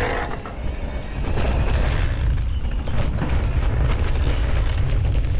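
Wind buffeting an action camera's microphone as a mountain bike rides a dirt trail, with scattered clicks and rattles from the bike and tyres over the ground.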